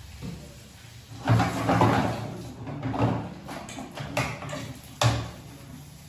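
A series of household handling sounds: scrapes, knocks and dull thuds of things being moved about, five or so in a few seconds.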